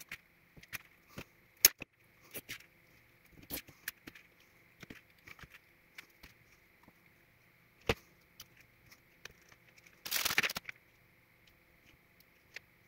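Scattered light clicks and taps as capacitor strips with copper wire leads are handled and set down on cardboard, with a short scraping rustle about ten seconds in.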